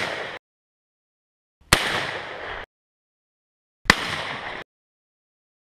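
Shotgun blasts: two sharp shots about two seconds apart, each with a short echo that cuts off abruptly. The tail of a third shot sounds just at the start.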